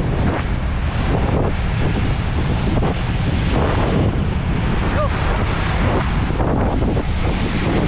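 Steady wind noise buffeting the microphone of a camera on a road bike riding at about 38 km/h in a pack.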